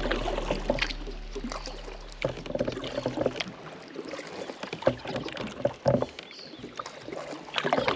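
Kayak paddle dipping into calm water, with irregular splashes and drips from the blade. Background music fades out about two seconds in.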